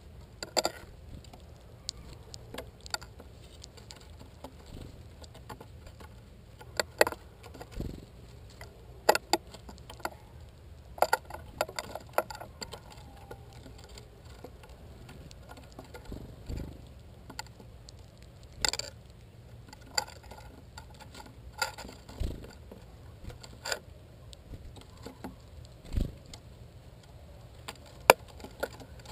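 Irregular sharp clicks and taps of American goldfinches pecking and cracking sunflower seeds on a wooden feeder tray right at the microphone, with a few dull thumps.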